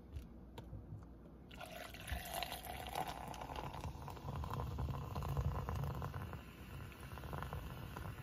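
Sprite poured from an aluminium can into a plastic cup, starting about a second and a half in after a few light clicks of the can being handled: a steady splashing, fizzing pour that grows a little louder as the cup fills.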